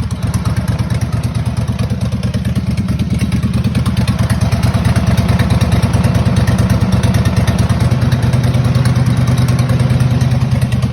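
Kohler Command V-twin engine of a racing lawn mower running steadily just after being started, getting a little louder over the first few seconds.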